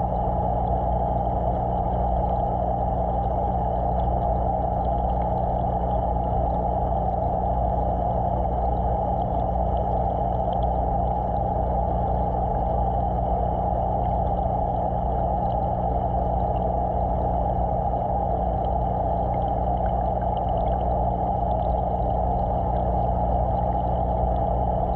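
Steady hum of aquarium pump equipment heard from under the water: a low, even electrical drone with a constant rushing hiss over it.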